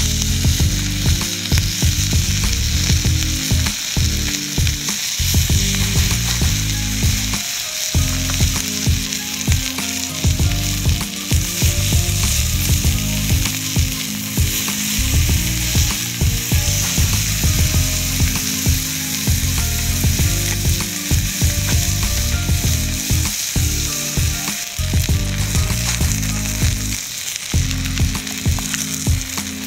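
Chicken sizzling on a flat stone slab heated over a wood fire: a steady frying hiss.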